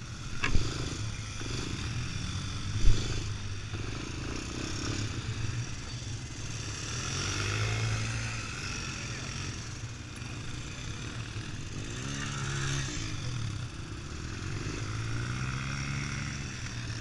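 Several quad ATV engines idling, with one revving up and down about twelve seconds in. Two sharp knocks sound near the start, about half a second and three seconds in.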